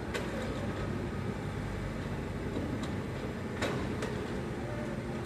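Kubota mini excavator's diesel engine running steadily, with a few sharp knocks from the working bucket and arm, the loudest about three and a half seconds in.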